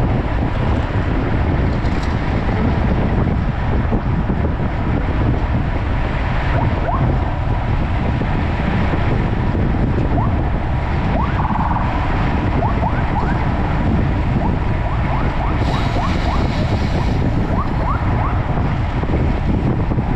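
Steady rush of wind over the microphone of a camera riding on a road bike at speed, mixed with tyre and road noise, with scattered short rising squeaks.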